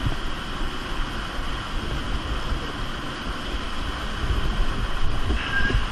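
Steady rushing of an underground cave stream, with a brief faint high tone near the end.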